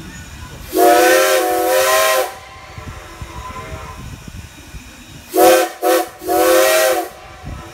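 Steam whistle of Strasburg Rail Road No. 90, a 2-10-0 Decapod steam locomotive, sounding several notes at once: one long blast, then about three seconds later two short toots and a longer blast, over the steady rumble of the moving train.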